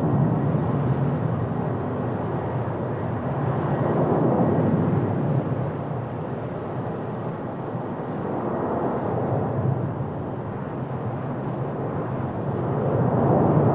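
Four-engine Boeing 747-400 freighter's jet engines making a continuous rumble as it lands. The rumble swells and fades, and grows louder again near the end.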